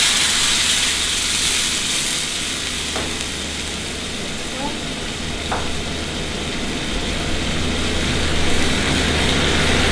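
Rice frying in oil in a pan over a gas burner, sizzling and bubbling steadily now that the blended sauce and water have been added, with a spoon stirring. A steady low hum runs underneath, and there are two light clicks in the middle.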